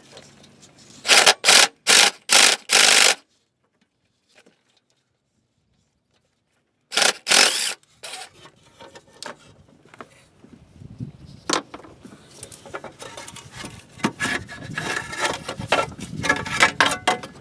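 Fasteners and a plastic shield being removed in a car's engine bay: four short, loud bursts of a power tool about a second in, two more about seven seconds in, then clicks and plastic rubbing and scraping as the shield is worked loose.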